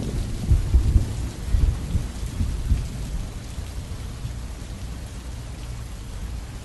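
Heavy rain falling, with a low rumble of thunder through the first few seconds that eases off.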